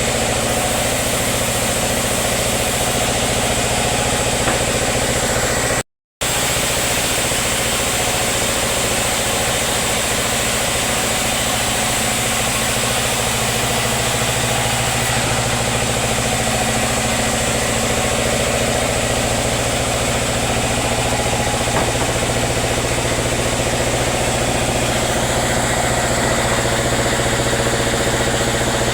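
Sawmill machinery running steadily with a continuous engine-like drone and hum, broken once by a brief dropout to silence about six seconds in.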